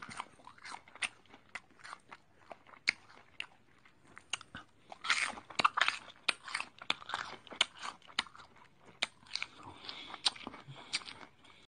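A two-toed sloth chewing food held in its paw, close to the microphone: irregular crunching and clicking bites, a little busier about halfway through.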